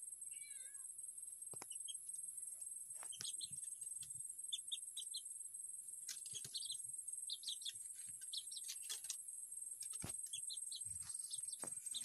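Short, high bird chirps in small clusters of two to four, over a steady high whine, with scattered light clicks and rustles from woven palm fronds being handled.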